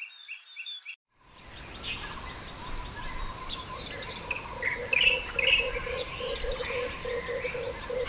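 Outdoor natural ambience of wild birds: a quick run of short high chirps, a brief drop to silence about a second in, then scattered bird chirps and whistles over a steady, evenly pulsing hum.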